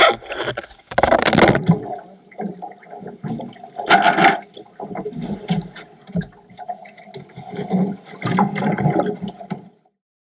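Irregular bursts of water splashing, with knocks and scrapes against a fibreglass boat hull, as a gaffed yellowfin tuna is hauled over the gunwale onto the deck. The noise stops abruptly near the end.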